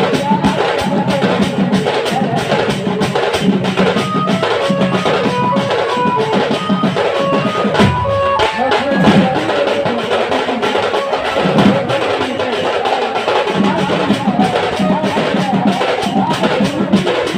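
Sambalpuri band baja playing: drums beat a fast, dense rhythm. Around the middle, a melody of short held notes plays over the drums.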